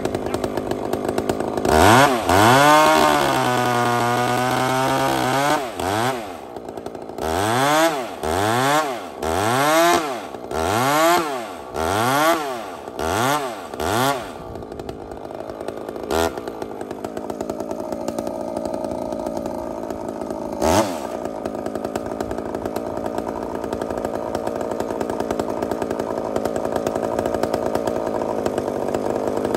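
Large two-stroke chainsaw with a long bar boring into a squared timber beam. It revs up near the start and is held at full throttle for about four seconds, its pitch sagging under the load. Then it is blipped in about eight short bursts roughly once a second, and settles to a steady idle broken by two single blips.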